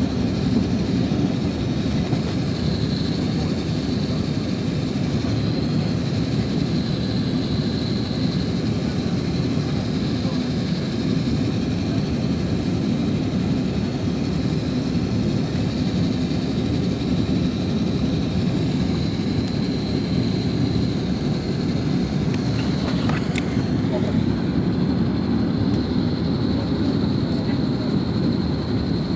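Cabin noise inside an Airbus A330-900neo on final approach: a steady rush of airflow and engine rumble from its Rolls-Royce Trent 7000 engines, with a high steady whine over it. A brief click comes a little over twenty seconds in.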